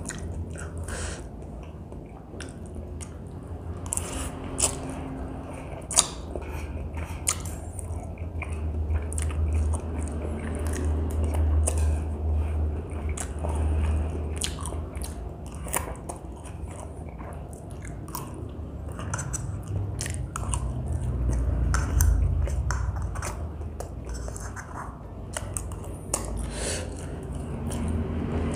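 A person eating spicy Mie Gacoan noodles close to the microphone: steady chewing and biting with many sharp wet mouth clicks.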